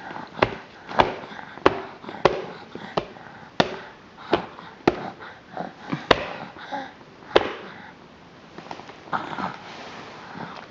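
Repeated sharp knocks on a baby's high-chair tray, about one every half second, stopping about seven and a half seconds in. Softer small sounds follow.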